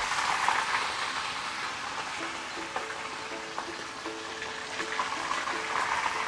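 Hairtail (belt fish) pieces deep frying in a pan of hot oil: a steady sizzling crackle of bubbling oil. Soft background music plays underneath.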